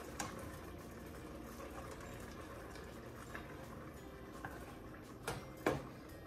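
Chicken noodle soup bubbling steadily in a stainless steel pot, with a few knocks of the stirring spoon against the pot, two of them near the end.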